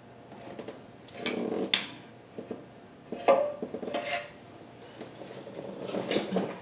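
Metal clanks and scrapes of a sheet-metal lower oil pan being pried loose and handled with tools, in several separate knocks about a second in, around three and four seconds in, and near the end.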